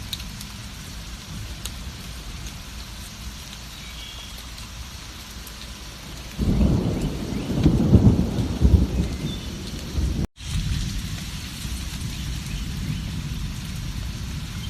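Steady heavy rain with a loud, low rolling rumble of thunder that breaks in suddenly about six seconds in and lasts about four seconds. The thunder cuts off in a brief dropout to silence, then the rain carries on.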